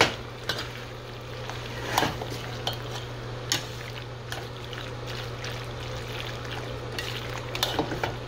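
A spoon stirring creamy bow-tie pasta in a stainless steel saucepan, with a few sharp clinks of the spoon against the pot, over a steady low hum.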